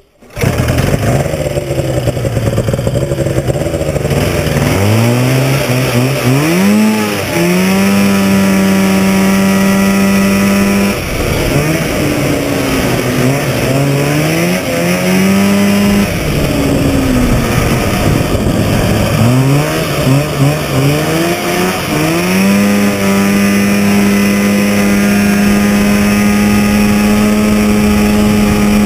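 1970 Scorpion Stinger snowmobile's 640 two-stroke engine running at speed. Its pitch climbs about five seconds in and holds high, drops back and winds up twice more, then holds high for the last several seconds.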